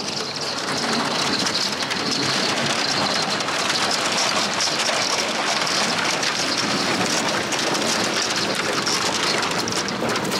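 Thin canal sheet ice cracking and breaking up as a boat pushes through it: a dense, steady crackle and fizz of ice plates splitting and grinding against the hulls of moored narrowboats.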